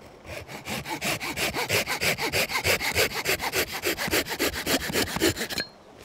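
Small hand saw cutting through a thin wooden branch held on a stump, in rapid, even back-and-forth strokes that stop abruptly near the end.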